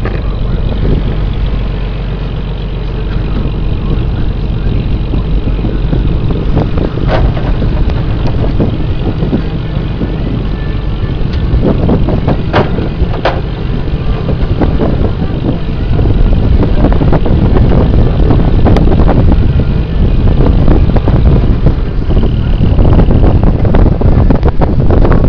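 Lobster boat's engine running steadily, with a rumbling wind-and-handling noise on the microphone and a few sharp knocks; it grows louder about two-thirds of the way through.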